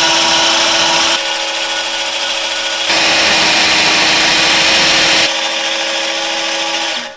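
Corded electric drill driving a 1 3/4-inch hole saw into a welded steel pipe: a steady motor whine with a harsh grinding of the cutter on the metal, louder in the first second and again in the middle, cutting off just before the end. The hole saw is cutting poorly, and the crew says it needs replacing with a new bit.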